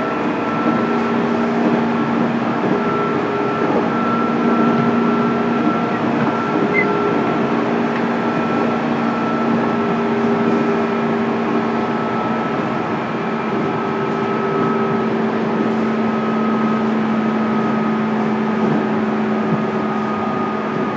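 Inside a JR East 205 series electric motor car, the MT61 traction motors and gearing whine steadily over the rumble of wheels on rail as the train runs at speed. The whine's pitch eases very slightly lower.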